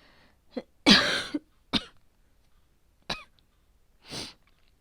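A woman coughing with a cold and high fever, as acted in a voice drama: a few separate coughs, the loudest about a second in, then a softer breathy one near the end.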